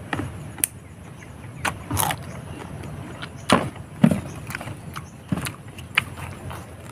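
Close-up chewing of raw green fruit: wet, irregular crunches and mouth clicks, one every half second to a second.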